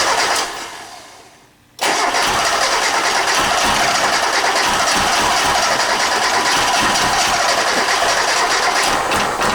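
A 1991 Mazda Miata's 1.6-litre four-cylinder engine being cranked on the starter in two goes: a short bout that dies away in the first second, then a longer steady cranking run of about seven seconds. The engine turns over without catching; it is not getting fuel.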